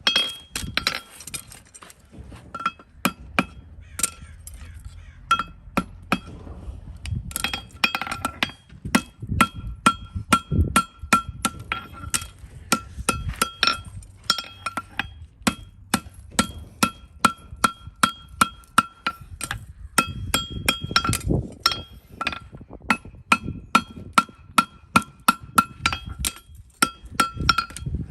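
A farrier's hammer striking steel: a long run of sharp, ringing metallic clinks, about three a second, each ringing at the same pitch, with a few brief pauses.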